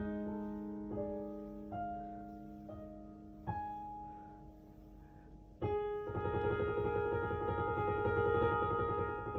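Background piano music: slow single notes and chords struck and left to ring out. A fuller, louder chord comes in a little over halfway through.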